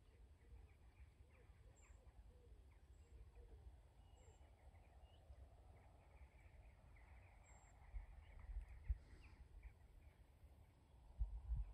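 Faint willow warbler song, a few soft phrases of short high notes, over a low steady rumble, with a few bumps about eight seconds in.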